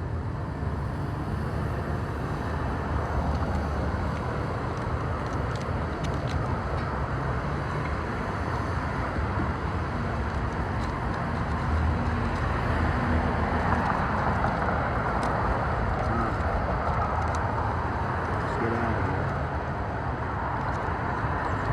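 Steady road-traffic rumble, which swells a little past the middle.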